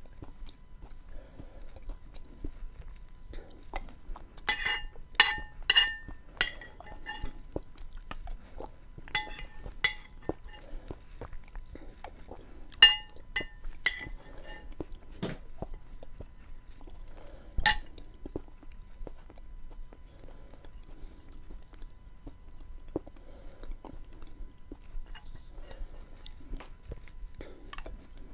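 Close-miked chewing of soft beans, wet and steady, broken by short runs of bright ringing clinks of cutlery against the dish: a few seconds in, around ten and thirteen seconds, and once more near eighteen seconds.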